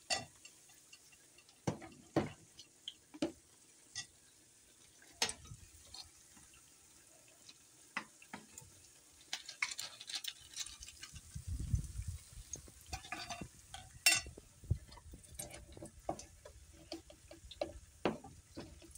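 A metal spoon stirring and scraping a thick fritter batter of bean and gram flour in a plastic tub, with scattered sharp clicks and knocks of the spoon and utensils against the containers. Faint sizzling of fritters frying in oil in a small pan runs underneath.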